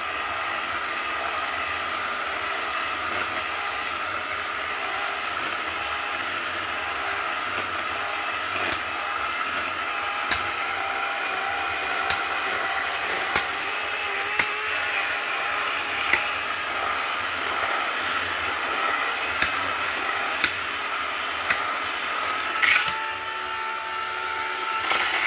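Chainsaw held at high revs while cutting through wood: a steady high-pitched whine with occasional small ticks. The throttle is held down through the cut, and the pitch shifts near the end.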